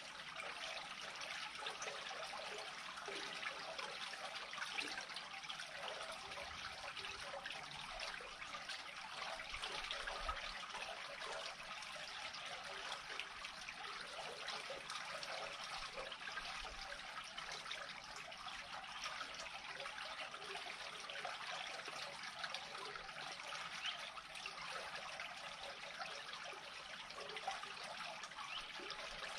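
Water trickling steadily as a pool drains through a freshly unclogged culvert.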